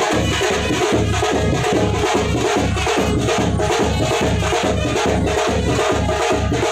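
Music with a fast, steady drum beat, about three to four beats a second.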